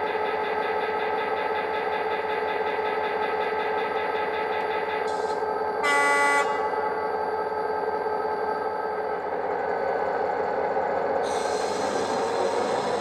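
Model Class 59 locomotive's DCC sound decoder playing a recorded diesel engine idling steadily through a small speaker, with one short horn blast about six seconds in. A hissing rush of noise joins near the end, the decoder's optional wagon creaking sound.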